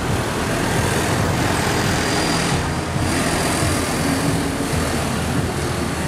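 Tour coach's diesel engine running and its tyres on the road as it drives past close by, a steady mix of engine and road noise.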